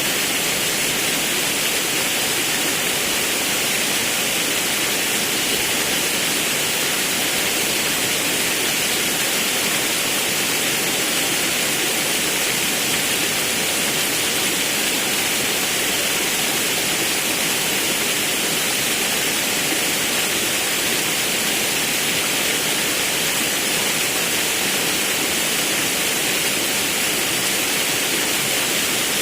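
Forest river and waterfall water rushing, a steady unbroken roar of falling and flowing water.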